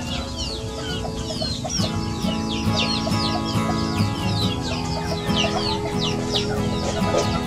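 A flock of young chickens calling as they forage: many short, falling peeps overlapping several times a second, over steady background music.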